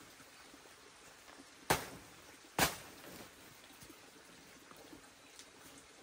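Two sharp knocks about a second apart, over a faint, steady background hiss.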